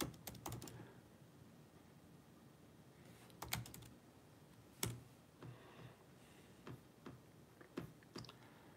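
Faint typing on a computer keyboard: a short run of key clicks at the start, another run a little after three seconds, one sharper click near five seconds, then scattered lighter taps.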